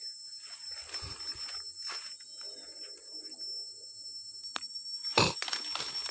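Footsteps crunching through dry forest leaf litter and twigs, with one loud sharp crack about five seconds in, over a steady high insect drone of the rainforest.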